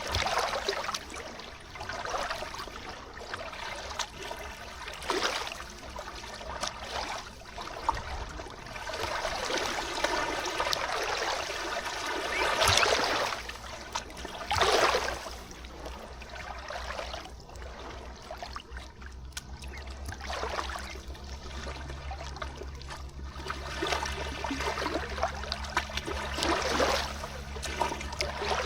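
River water flowing and lapping at the shore, swelling and ebbing in uneven surges.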